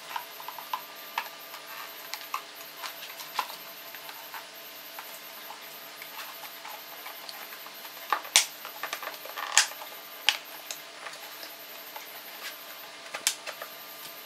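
Hard plastic clicking and knocking as the plastic housing of a car's air-conditioning evaporator unit is handled and its clips are worked: scattered light clicks, with sharper knocks about eight and nine and a half seconds in and another near the end.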